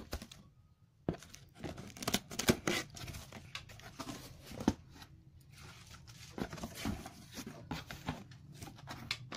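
Scissors snipping through plastic twine tied round a cardboard carton, then the carton's flaps being pulled open: a run of sharp clicks, scrapes and cardboard rustling that starts about a second in and is busiest through the first half.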